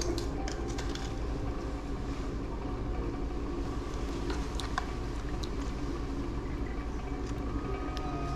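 A pot of curry fish in coconut milk simmering: a steady low rumble with scattered small clicks and pops.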